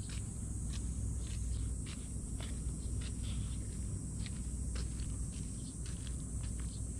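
Insects chirring steadily and high in the background, with many scattered light rustles and ticks on the ground and a steady low rumble underneath.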